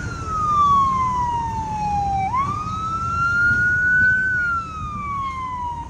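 An emergency vehicle's wailing siren: the pitch slides slowly down for about two seconds, jumps back up, climbs for a couple of seconds, then slides down again near the end.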